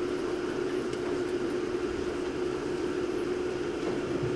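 A steady mechanical hum holding one pitch, with a low rumble beneath it.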